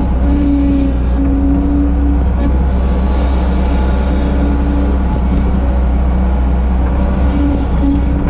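Bobcat 743 skid steer's diesel engine running steadily under work, with a higher whine that comes and goes several times.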